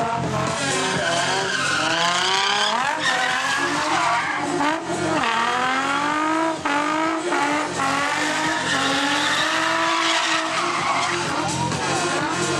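Car engine revving hard, its pitch swinging up and down again and again, while the spinning rear tyres screech through a smoky burnout donut.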